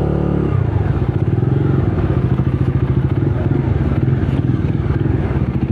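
Bajaj Dominar 250's single-cylinder engine through its stock exhaust, with a brief rise in revs in the first half-second and then idling steadily.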